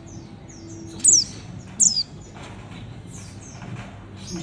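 White-eye (mata puteh) chirping: two sharp, high calls that fall quickly in pitch, about a second in and again just before two seconds, with fainter chirps between, over a low steady background rumble.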